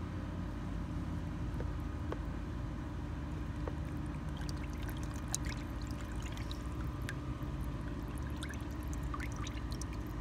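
Water in a hydro-dip tank sloshing, trickling and dripping as a revolver is dipped through the activated film. Small splashes and drips come from about four seconds in, over a steady low hum.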